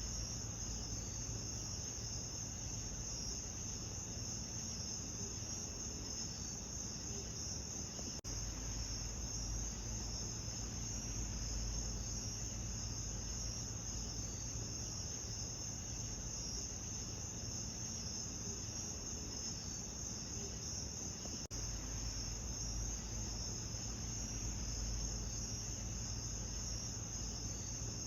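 Steady night chorus of crickets trilling in a high band, over a low rumble. The sound cuts out for an instant twice.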